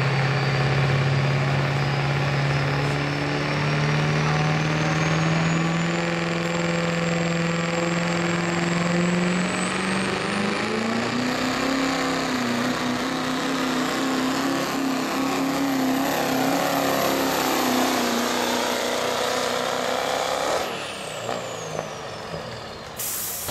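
Turbocharged diesel pickup engine running flat out while pulling a weight-transfer sled, with a high turbo whistle climbing steadily; about ten seconds in the engine note rises in pitch and holds. About three seconds before the end the throttle is let off and the turbo whistle falls away quickly.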